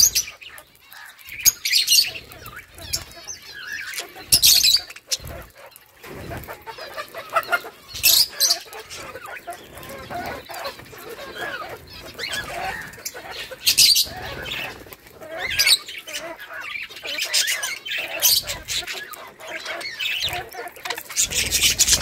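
A flock of budgerigars chirping and chattering, with several brief bursts of wing flapping as birds land on and take off from their food basket.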